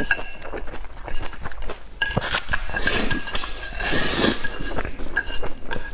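Wide flat noodles in chili oil being slurped up in noisy swells, about three and four seconds in, with wet chewing. Chopsticks click and clink against the bowl throughout.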